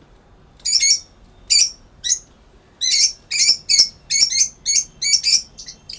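Lovebird giving short, shrill, high-pitched calls: a few spaced out at first, then a rapid run of about a dozen from about three seconds in.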